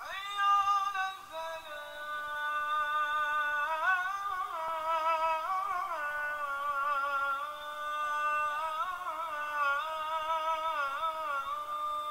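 A wordless vocal melody, sung or hummed, moving slowly through long held notes with wavering ornamental turns between them.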